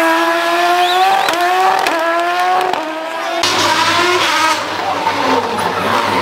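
Citroën C2 rally car's engine revving hard, its pitch climbing and breaking off with several quick gear changes. In the second half the sound turns rougher, with tyre noise as the car slides off the road.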